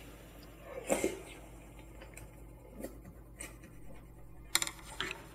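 Eating sounds: chewing, with scattered light clicks and scrapes of chopsticks against plastic takeout containers, about half a dozen, the sharpest a little after four and a half seconds in.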